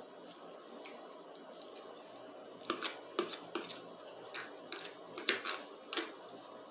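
Close-up eating sounds of a person chewing spaghetti: a run of short, wet smacks and clicks starting about two and a half seconds in, after a quiet start.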